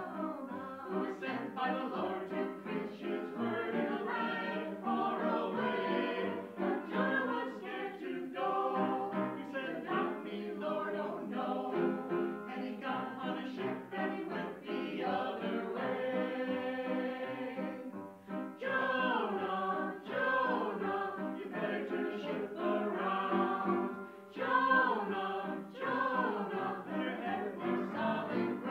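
Church choir singing an anthem: several voices in sustained, gliding lines with no pause.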